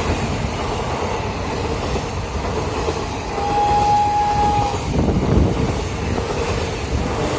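A military special train passing at speed, its wagons rumbling and clattering over the rail joints. Midway a single high, steady tone sounds for just over a second.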